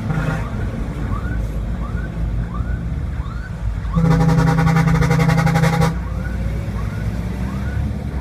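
Vehicle horn sounding one steady, buzzy blast of about two seconds, starting about halfway through, over a steady engine idle. Short rising chirps repeat about every half second before and after the blast.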